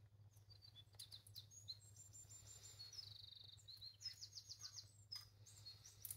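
Faint high chirps from a great tit, with a quick trill about three seconds in and another a second later, and a few light clicks in between.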